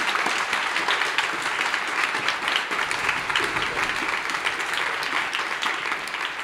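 Audience applauding, a dense patter of many hands clapping that slowly thins and fades toward the end.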